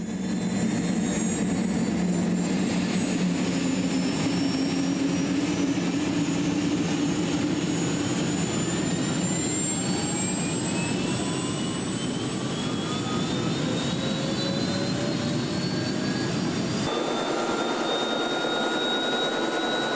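Helicopter turbine engine heard from inside the cabin with its doors off, its whine climbing slowly and steadily in pitch as it winds up, then settling to a steady pitch near the end.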